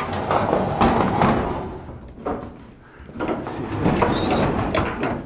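Plywood sliding barn door rolling along its newly installed overhead rail, pushed twice in two stretches of rolling noise of about two seconds each, with a few knocks. The door is being run along the rail to find the uneven spots in the track.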